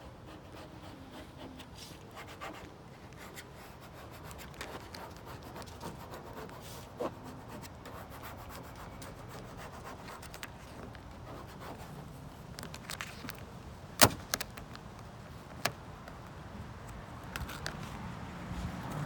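Vinyl stripe and its backing paper being handled and rubbed down by hand: a low, continuous rubbing and rustling with scattered sharp clicks, the loudest about fourteen seconds in.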